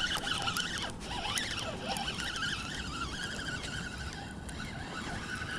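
Shimano Sahara 2500 spinning reel being cranked to reel in a hooked striped bass: a steady, wavering gear whir with small clicks from the handle and spool.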